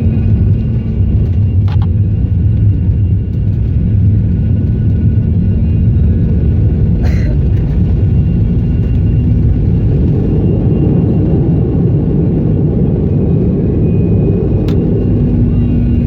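Sukhoi Superjet 100's SaM146 turbofan engines running: a loud, steady rumble with a steady hum, swelling in the middle range about ten seconds in, with three short clicks along the way.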